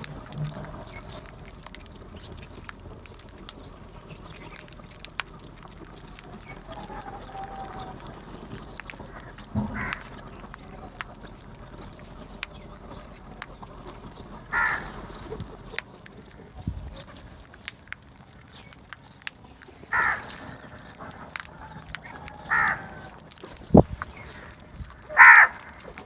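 House crows cawing: single short, harsh caws a few seconds apart, the loudest near the end, with one sharp tap shortly before the last caw.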